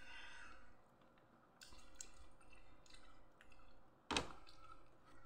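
Faint wet eating sounds of watermelon being chewed, with small squishes and mouth clicks, and one sharper click about four seconds in.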